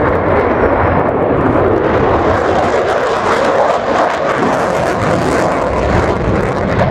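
F-35 Lightning II's Pratt & Whitney F135 afterburning turbofan running hard in afterburner during a tight turn: loud, steady jet noise with a rough, crackling edge through the middle.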